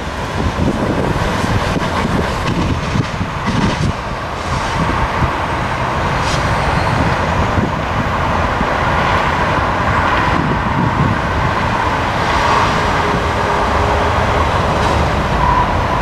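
Steady rumble of a Tri-Rail commuter train moving away from the crossing, mixed with road traffic noise.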